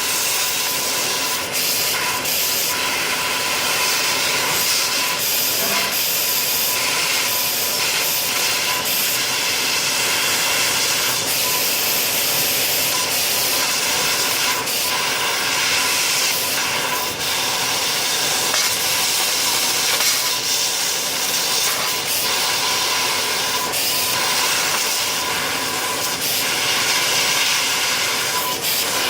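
A 500 W fiber laser CNC cutter cutting thin 0.6 mm sheet: a steady hiss of the assist gas jet at the cutting head, with a faint steady high tone under it and small brief ticks here and there.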